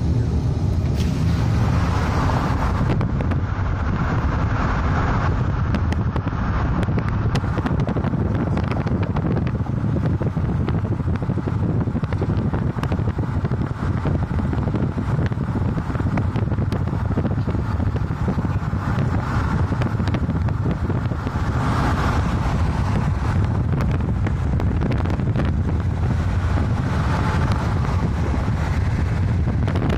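Steady road noise of a car travelling at highway speed, a low tyre and engine rumble with wind rushing at the microphone.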